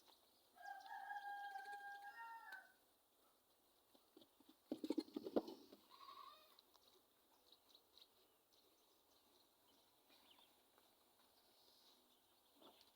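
Goat bleating: one long, steady, fairly high call of about two seconds near the start. A brief louder noise follows about five seconds in.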